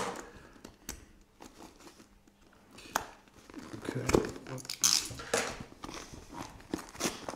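Scraping, rustling and irregular clicks of a package being cut open with a knife that barely cuts.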